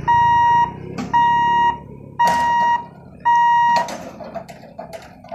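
Level-crossing warning buzzer sounding four long, even beeps, about one a second, while the electric lifting barriers come down. It stops about four seconds in, and a scatter of light clicks and taps follows.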